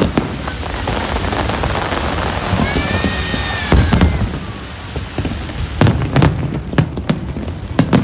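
Fireworks display: a dense crackle of bursting shells, with sharp bangs about four seconds in, twice around six seconds and again near the end.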